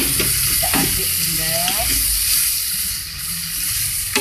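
Chopped vegetables sizzling in a nonstick frying pan as a wooden spatula stirs them, with a steady hiss and a few knocks and scrapes of the spatula against the pan.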